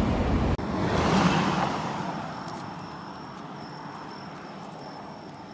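Night-time outdoor ambience: a vehicle's noise swells about a second in and fades away, leaving a steady low hiss with a faint high steady tone.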